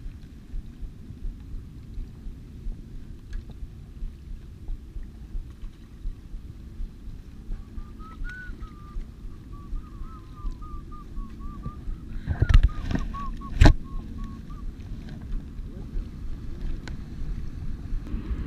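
Steady rumble of wind and lapping bay water, with faint small ticks. A faint wavering whistle-like tone comes in the middle, and two sharp loud knocks about a second apart come a little past two-thirds of the way through.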